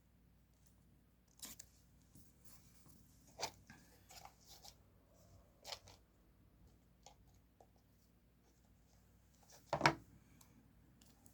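Paper and stationery handled on a desk while decorating a diary: a few scattered soft clicks and paper rustles, with a sharper clack near the end.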